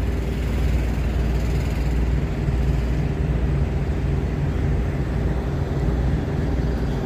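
Steady low drone of an idling diesel truck engine, even and unchanging.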